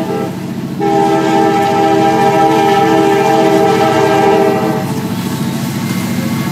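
CSX freight train's diesel locomotive sounding its air horn, a chord of several notes: a short blast right at the start, then a long blast of about four seconds that stops about five seconds in. The locomotive's diesel engine keeps running underneath and after the horn.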